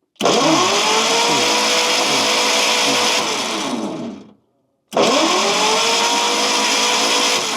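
Electric starter motor cranking the 1953 Kaiser Manhattan's Continental 226 flathead six during a compression test, in two bursts of about four and three seconds; each time the whine rises quickly, then holds steady over an even cranking pulse. Cylinder 2 shows no compression, which the owner puts down to stuck valves.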